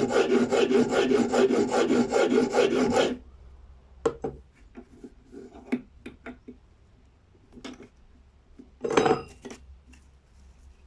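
Rapid back-and-forth rasping strokes of hand filing on the knife, about six strokes a second, stop abruptly about three seconds in. A few light clicks and knocks of handling follow, the loudest near the end.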